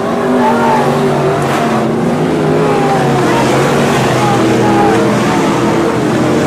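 Several IMCA Modified dirt-track race cars' V8 engines running hard together, their overlapping engine notes rising and falling as the cars race past.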